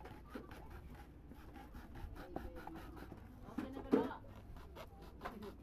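Knife blade cutting and scraping through the rubber sole of a flip-flop: a run of small scratchy clicks, with a louder, short pitched sound about four seconds in.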